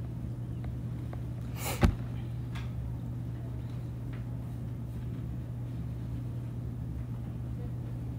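Steady low hum of room noise, with faint ticks of a stylus writing on a tablet screen and one sharp click about two seconds in.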